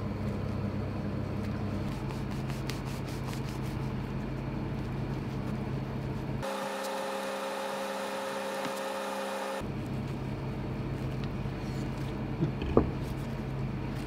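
Steady low hum, with faint rubbing and clicking of a small knife slitting thick fried tofu on a plastic cutting board, and a short sharp knock near the end.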